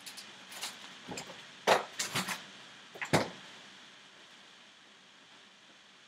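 A handful of scattered knocks and clunks from things being handled around a kitchen, loudest about two seconds in. The last couple of seconds are nearly silent.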